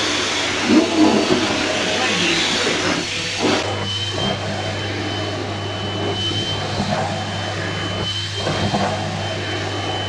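Vacuum cleaner running steadily with a low hum and a hiss. A little after three seconds in, the hiss drops and a thin high whistle sets in.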